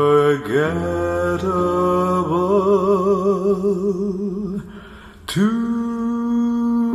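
Vocal music played through Dali Helicon 300 mk2 loudspeakers and picked up by a phone's microphones: a singer holds a closing note with a wide vibrato, then it fades. About five seconds in, a sustained instrumental chord comes in sharply.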